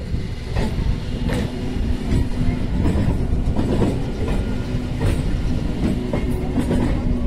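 Indian Railways electric multiple unit (EMU) local train passing close by, its wheels clacking over the rail joints about once every second or less. A steady hum comes in about two seconds in.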